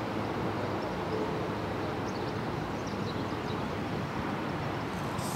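Steady outdoor background noise, a low rumbling hiss, with a few faint high chirps about two to three seconds in and a short click near the end.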